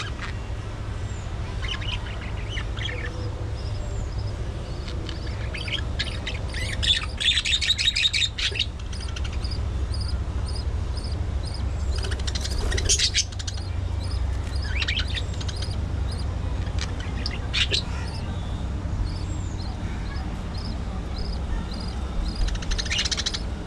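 A budgerigar flock chirping and chattering, with a dense burst of warbling about seven to eight seconds in. Through the second half, one bird repeats a short high chirp about twice a second. A steady low hum runs underneath.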